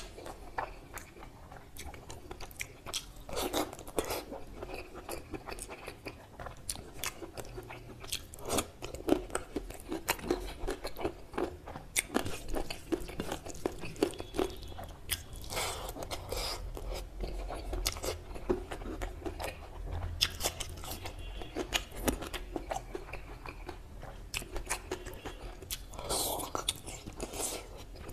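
Close-miked chewing and biting of a person eating mutton curry with rice, with many quick mouth clicks and smacks.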